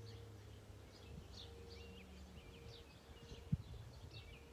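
Small birds chirping over a faint, steady distant tone from an outdoor warning siren. A single thump about three and a half seconds in.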